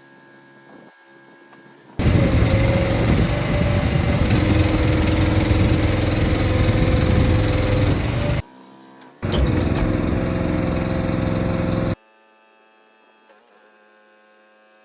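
An engine running loudly and steadily, in two stretches broken by a short gap, with faint tones before and after.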